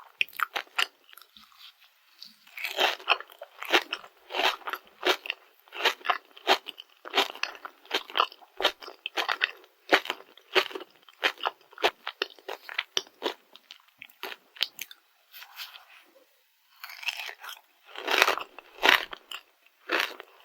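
Crunchy chewing of a Dubai-chocolate rice cake: rapid crisp crunches from its toasted kataifi-and-pistachio filling, with a short pause about three-quarters of the way through before the crunching resumes.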